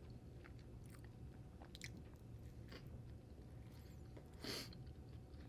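A person chewing food close to the microphone, with faint scattered mouth clicks and one louder, sharper sound a little past four seconds in.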